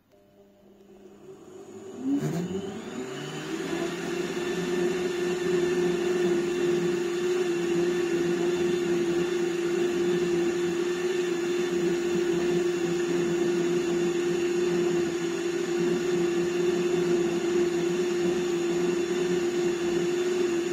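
A small electric appliance's motor starting up, rising in pitch over the first few seconds with a click about two seconds in. It then runs at one steady pitched whir, reading about 73 dB on a sound level meter at 60 cm, and cuts off sharply near the end.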